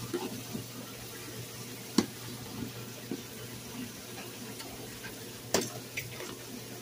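Handling noise: soft rustling with a few sharp knocks, the loudest about two seconds in and another about five and a half seconds in.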